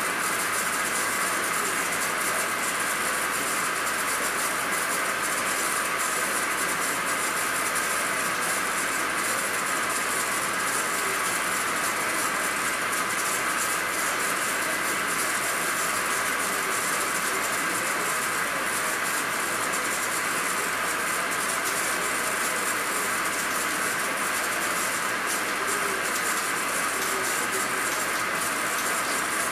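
Engine lathe running steadily under power while a high-speed steel tool takes a cut on an eccentric, offset-turned diameter of weld-repaired steel. The machine and the cut make a continuous, even mechanical noise with no pauses.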